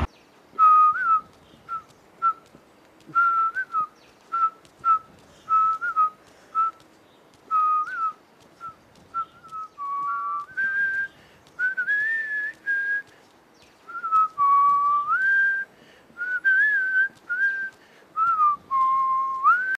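A person whistling a tune: short notes with little pitch bends at first, then longer held notes with upward slides in the second half, in phrases separated by short gaps.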